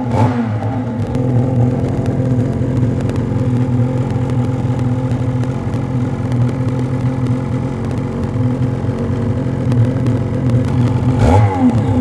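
Ski-Doo Gen 5 Turbo snowmobile's turbocharged two-stroke engine running at a steady idle through a GGB trail can aftermarket exhaust, with a quick throttle blip at the start and another near the end.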